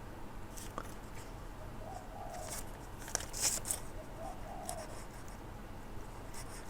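Light scratching and clicking of small metal tools working on a jumper wire's tiny crimped metal pin, in short scattered bursts, the loudest about halfway through. A soft repeated call is heard three times in the background.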